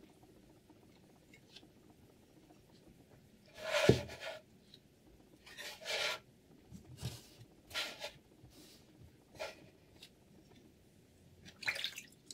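About six short rubbing, scraping sounds at uneven gaps. The loudest comes about four seconds in and ends in a dull knock.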